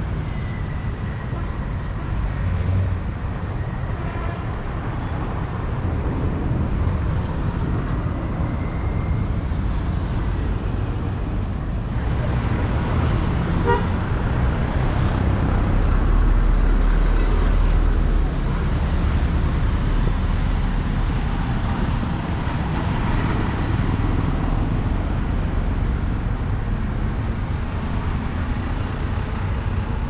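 Street traffic: a steady wash of passing cars, with a heavier, louder vehicle rumbling past about halfway through.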